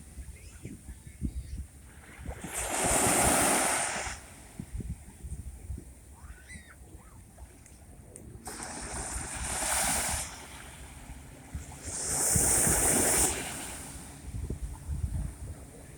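Sea waves breaking and washing up on the shore, three surges rising and falling, with wind buffeting the microphone.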